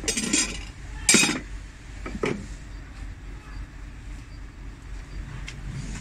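Steel brake plates and friction discs from a backhoe loader's axle brake clinking against each other as they are handled and set down on a pile: three ringing metallic clinks in the first couple of seconds, the loudest about a second in.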